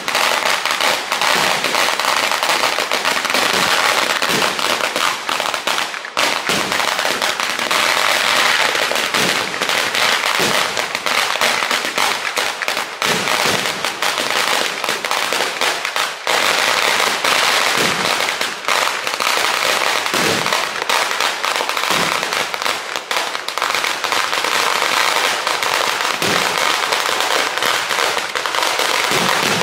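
Firecrackers of a Kerala temple fireworks display (vedikettu) going off in a dense, unbroken crackle at ground level, with deeper booms every couple of seconds.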